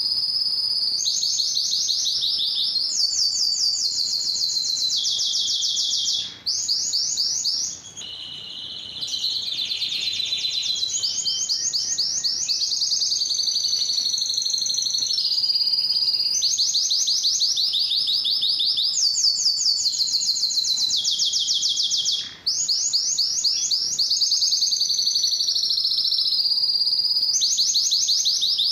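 Domestic canary singing a long, continuous song of fast, high trills, the phrases changing every second or two. The song breaks off briefly about six seconds in and again about twenty-two seconds in, and turns softer and lower for a phrase around nine seconds in.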